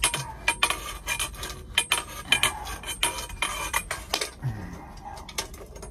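Quick irregular metallic clinks and scraping, several a second, each with a brief ring, from work on half-inch copper water pipe.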